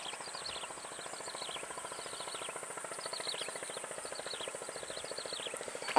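Swamp ambience: a bird calling in five or six short runs of quickly falling notes, over a steady high insect whine and a fast, even low pulsing.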